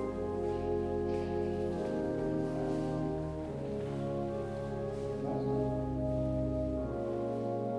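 Church organ playing slow, sustained chords that change every second or two over deep held bass notes.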